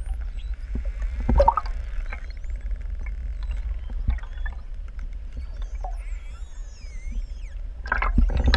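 Underwater sound of a pod of pantropical spotted dolphins: faint high whistles gliding up and down and rapid click trains over a steady low rumble of water, with a louder cluster of clicks near the end.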